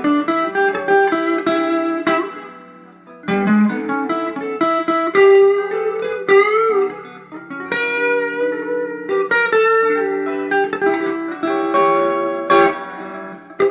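Electric guitar lead played on a Fender Telecaster's single-coil neck pickup through an amplifier: a run of plucked single notes, with a bent, wavering note about halfway through and a short pause near the start.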